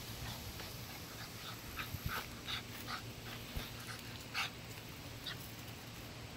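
Seven-week-old American Bully puppy whimpering in short, high squeaks, about six of them over a few seconds, the loudest about four seconds in.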